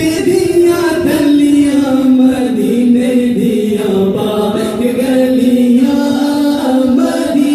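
Unaccompanied devotional chanting, with long held notes that slowly rise and fall.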